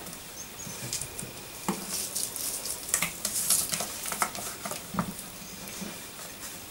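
Sliced raw onion being pulled apart by hand and dropped into a plastic bowl of raw minced beef: soft, crackly rustling with a few light knocks.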